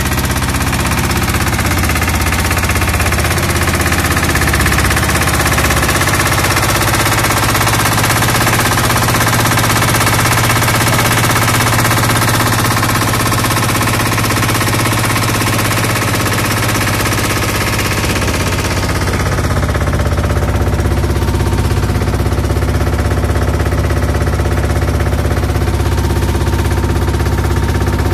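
Small air-cooled inboard boat engine running steadily at speed with a rapid, even chugging, over the rush of water along the wooden hull. About two-thirds of the way through, the hiss fades and the low drone grows stronger.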